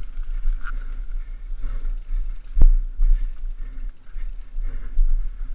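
Wind buffeting a helmet-mounted camera's microphone while a mountain bike rattles over rough trail, with one sharp knock about two and a half seconds in.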